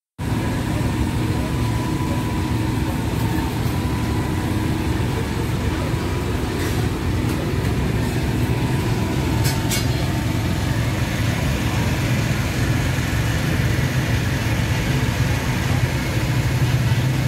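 Steady low engine hum under even street noise, with a faint steady tone in the first half and a few brief clicks around the middle.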